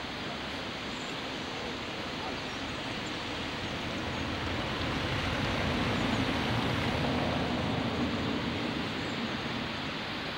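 Steady rushing outdoor noise without distinct events, swelling a little in the middle.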